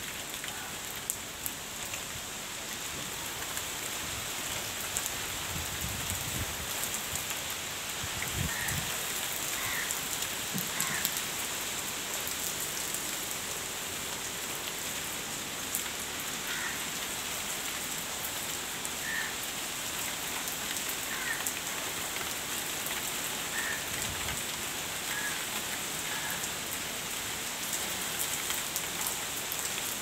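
Steady rain falling: an even hiss dotted with many small drop ticks.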